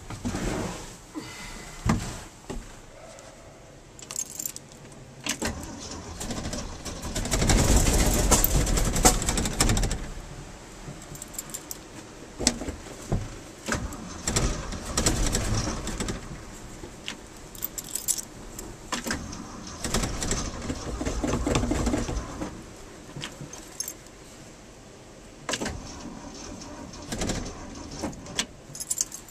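Starter cranking a 1974 Ford F250's engine in several bursts without it starting, the longest and loudest about seven to ten seconds in, with light clicks and rattles between attempts.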